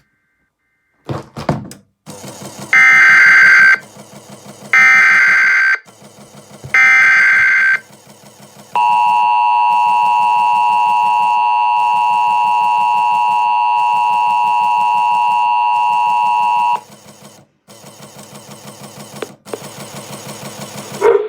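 Emergency Alert System tones from a TFT EAS encoder. After a click, three one-second bursts of screeching SAME header data sound about a second apart, followed by the steady two-tone EAS attention signal held for about eight seconds, which cuts off abruptly. A low rhythmic buzz runs underneath.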